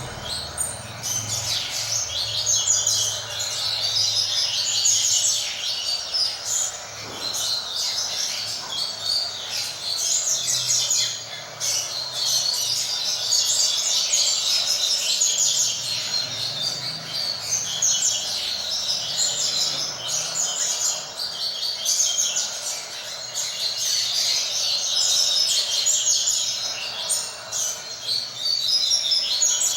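Coleiros (double-collared seedeaters) singing the 'tui tui fibra' song, many short chirping phrases running on continuously and overlapping.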